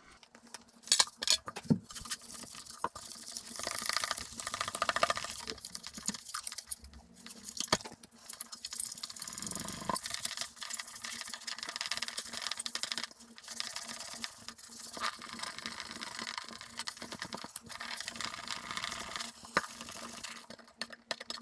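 Wet abrasive scrubbing pad rubbing back and forth over a silver plate in citric-acid solution, a continuous scratchy, wet swishing in repeated strokes. This is the scrub that strips the oxidation from the silver.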